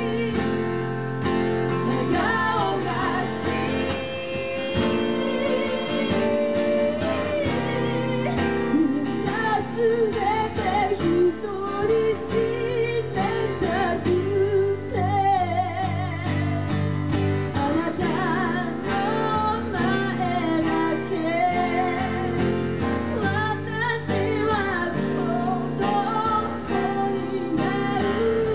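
Live song: a strummed acoustic guitar under a woman's and a man's singing voices.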